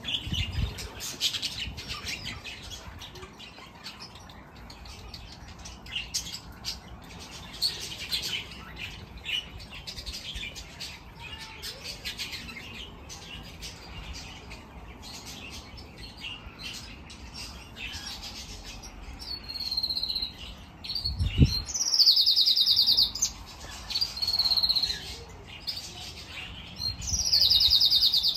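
Small cage birds in an aviary chirping and chattering throughout. Loud, harsh, high calls break out around two-thirds of the way through and again near the end. A single low thump comes just before the first harsh calls.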